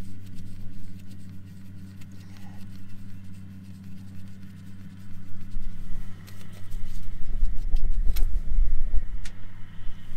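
An engine running steadily nearby as a constant low hum. A deeper rumble swells up from about halfway through, and a few sharp metallic clicks from wrench work on the pump bolts come near the end.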